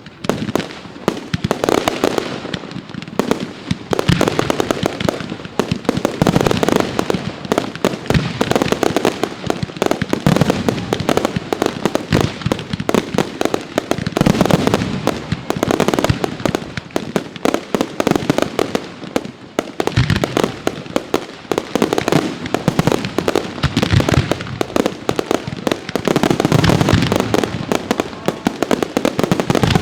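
Fireworks display going off in a dense, continuous barrage: many overlapping loud bangs and pops with no pause, swelling every couple of seconds.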